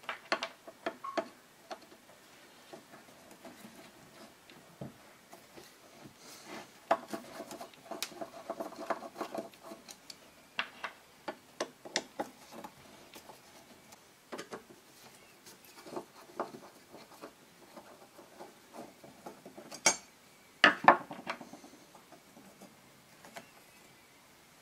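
Screwdriver taking out the small screws of the steel bar that ties a rack of four Keihin CV carburettors together: scattered metallic clicks, scrapes and light clinks, with a couple of louder metal clinks later on.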